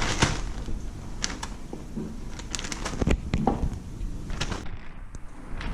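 Pieces of flathead steak being dropped by hand into a packet of crushed chips: scattered light taps and rustles of the packet.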